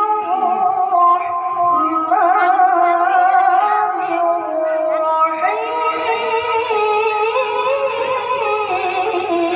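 A boy's voice chanting Quran recitation (tilawah) into a microphone, in long held melismatic notes with wavering ornaments. About halfway through it moves up into a higher, brighter phrase.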